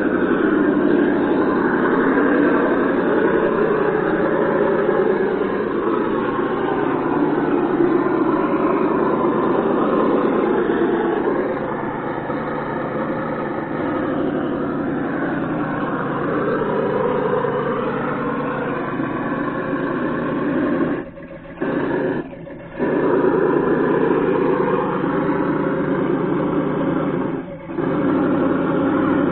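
An RC truck's engine sound simulator (ESS sound box) playing a simulated engine, revving up and down with the throttle as the Traxxas Summit drives and crawls. The sound drops out briefly three times in the last third.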